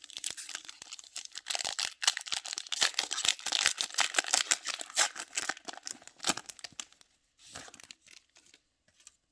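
A baseball card pack's wrapper being torn open and crinkled by hand: dense crackling and tearing for about seven seconds, then a few soft rustles near the end.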